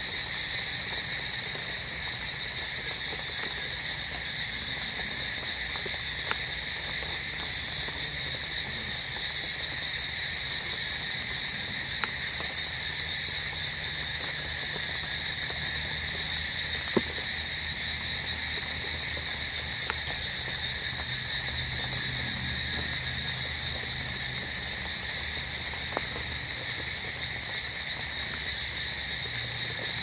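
Night chorus of calling frogs, with insects, a steady unbroken din that never lets up, with a few faint clicks scattered through it.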